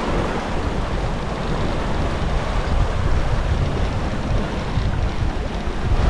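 Wind buffeting the microphone over the steady rush of waves and wake from a sailboat under way at sea.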